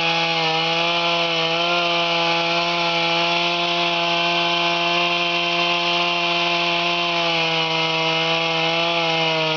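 Chainsaw running at steady high revs, cutting through an aspen trunk during felling, with slight dips in pitch now and then.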